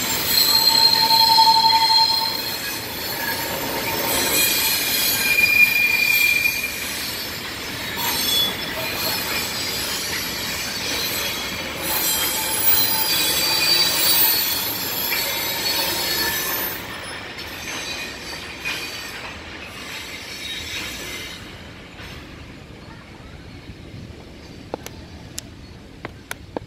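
Freight train rolling past, its wheels squealing in high steady tones. The noise fades as the last wagons go by, leaving a few faint clicks near the end.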